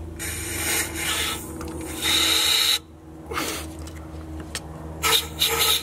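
Aerosol carburetor cleaner sprayed through a thin extension straw into the clogged PCV passage of the intake manifold, in several hissing bursts, the longest and loudest about two seconds in. A steady low hum runs underneath.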